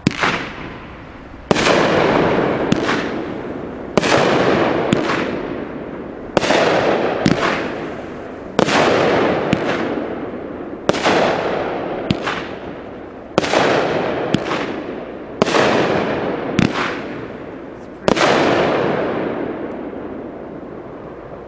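A 200-gram, 12-shot fan-cake firework firing a series of shots: about nine loud bangs roughly two seconds apart, with smaller sharp pops between most of them. Each bang trails off in a long fading hiss.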